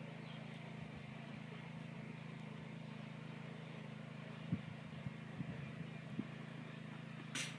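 A steady low hum throughout, with a few faint knocks and one sharp crack near the end as the pitched baseball reaches the batter.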